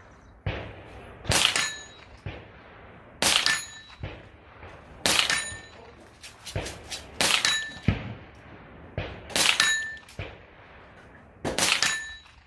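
Ruger .22 rifle firing shot after shot, about one every two seconds, each crack followed by the brief high ring of a steel target being hit.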